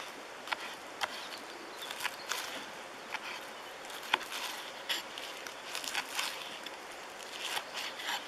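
Small knife slicing green onions against a wooden plate: irregular crisp cuts, roughly one a second, over a steady background hiss.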